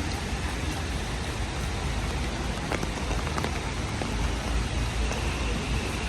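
Steady rain falling on city pavement as a continuous hiss over a low rumble, with two sharp drop taps about three seconds in.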